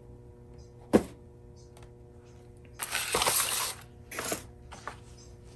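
Handling noise at a workbench: a sharp click about a second in, then about a second of rustling or scraping and a shorter burst after it, with a few light ticks, over a steady low hum.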